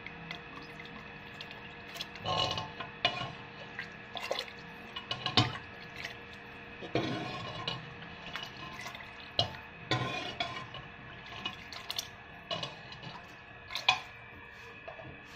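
Steel ladle scooping and stirring mutton soup in a steel pot: irregular clinks and scrapes of metal on metal, with liquid sloshing and dripping. A faint steady hum runs underneath.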